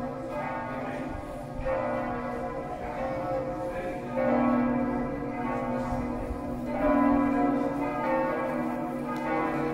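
Church bells ringing, with fresh strokes every couple of seconds, each left ringing on into the next.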